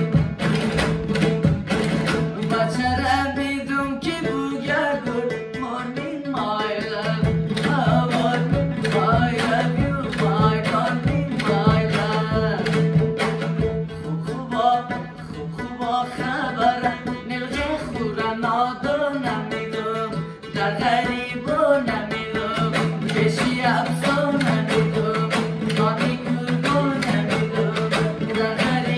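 Background music: a voice singing over a steady held drone, with drum strokes.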